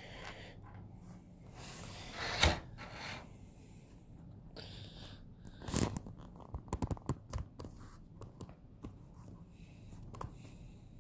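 Small hard plastic action-figure parts being handled: a sharp click about two and a half seconds in, then a louder click followed by a quick run of light clicks and taps around the middle, with a few faint ticks after.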